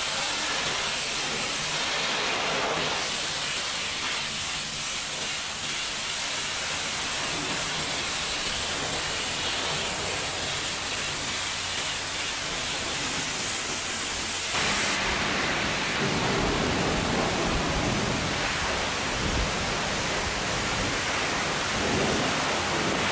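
High-pressure washer jet spraying water onto a livestock trailer's wooden-slatted floor and metal walls: a steady rushing hiss of spray and splatter. About two-thirds through it changes abruptly, becoming a little louder and fuller.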